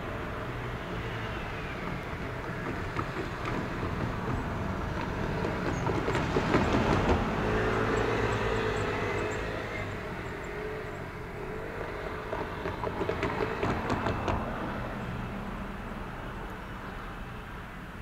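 Railway depot noise around a standing Keikyu 1000 series train: a steady hum, swelling twice with a rumble and clatter, and a faint whine held through the middle.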